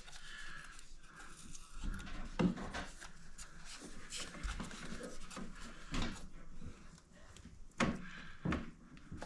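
Handling noise from the new refrigerator water filter housing and its clips being worked into place: rubbing and scraping with several light clicks and knocks, a few sharper ones about two and a half, six and eight seconds in.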